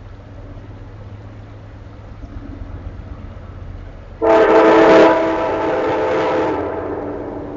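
Train horn sounding one long blast, several tones together as a chord, starting about four seconds in. It is loudest for the first two seconds, then trails off as it echoes through the valley.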